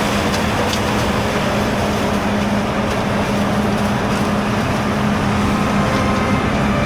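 Heavy harvest machinery running steadily at working speed: a loud, even rush with a constant low hum underneath.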